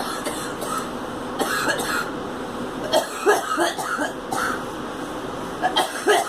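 A girl coughing in several short fits, a bout about a second and a half in, a longer run around three to four seconds, and another near the end.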